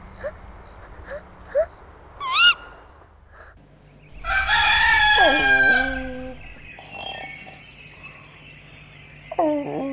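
Rooster crowing once, a long cock-a-doodle-doo about four seconds in that ends in falling tones, marking daybreak. A short warbling bird call comes about two and a half seconds in, and another falling animal call starts near the end.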